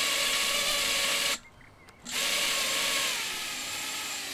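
Brushless motors of an iFlight Nazgul 5-inch FPV quadcopter spinning at low throttle with a steady whine. The whine cuts out for about half a second, comes back, and eases slightly lower and quieter near the end.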